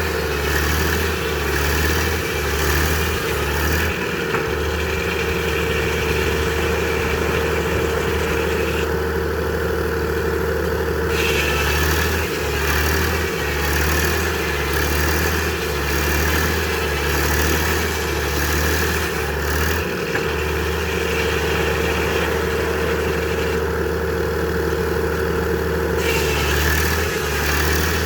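Frick sawmill running: a steady mechanical drone from its engine and saw. A higher steady whine joins twice, each time for about six or seven seconds.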